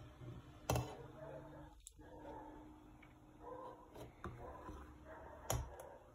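Metal ladle stirring hot milk in a stainless steel pot, clinking sharply against the pot twice, about a second in and near the end, with a few lighter taps between.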